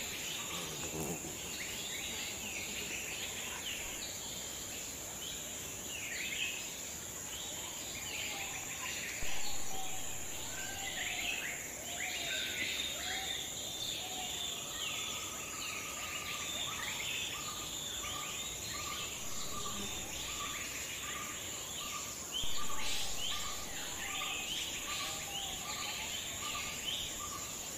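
Outdoor ambience of insects and birds: a steady high insect drone under frequent bird chirps. From about halfway a short call repeats about twice a second. Two brief louder sounds come, about a third of the way in and again near three quarters.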